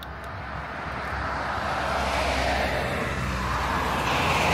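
Medium-duty cab-over box truck approaching along a highway, its tyre and engine noise steadily growing louder as it nears.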